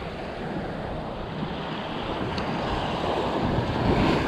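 Surf washing onto a beach, with wind buffeting the microphone: a steady rushing that swells a little near the end.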